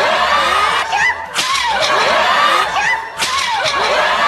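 A sharp crash as roof tiles are smashed, followed by a high, wavering cry of 'aah'. The same clip repeats about every two seconds, three times over.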